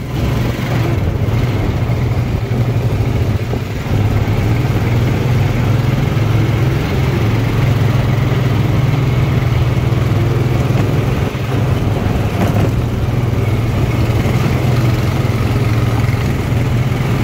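ATV engine running steadily with a low, even drone while riding over a cobblestone street, with a broad rumble of tyres and chassis over the stones.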